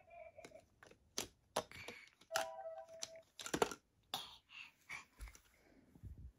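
Clicks and knocks of plastic toys being handled, with a short steady electronic toy tone about two and a half seconds in.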